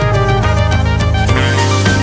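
Background music: sustained pitched instrumental notes over a steady bass with a light beat.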